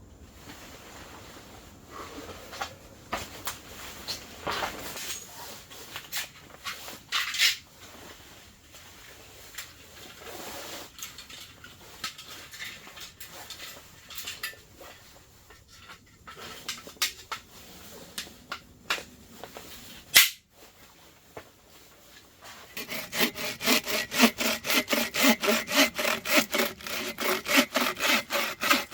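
Irregular rubbing and scraping with a single sharp knock, then, from about three-quarters of the way through, a hand saw cutting wood in steady strokes, about three a second.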